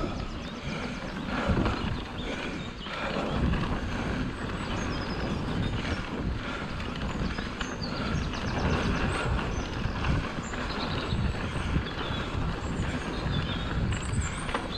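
Full-suspension mountain bike (Orbea Rallon) ridden over a bumpy grass field track: a steady rumble of tyres on the rough ground with a constant jumble of knocks and rattles from the bike.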